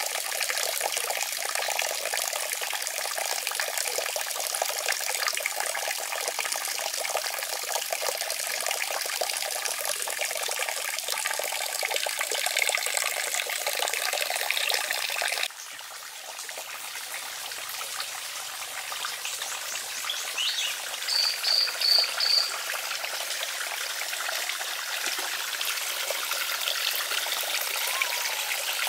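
Steady trickle of water falling into a small pond from a fountain spout, dropping quieter about halfway through. Four short, high chirps come in quick succession about two-thirds of the way in.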